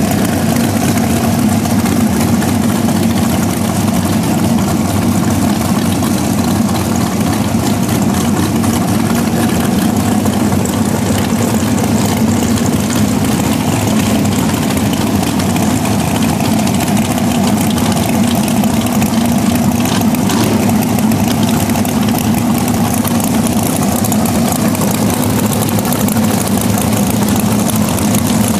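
Dragster's supercharged V8 engine idling steadily and loudly.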